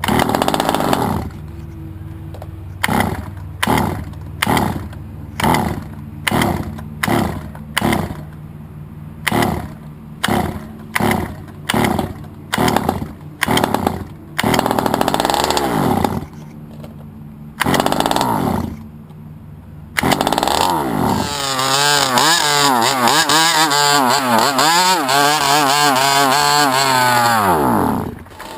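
23cc two-stroke engine of an HPI Baja 5B RC car being cranked in a quick series of short bursts, about one and a half a second, without firing. It then fires briefly twice and, about two-thirds of the way through, catches and runs with revs rising and falling.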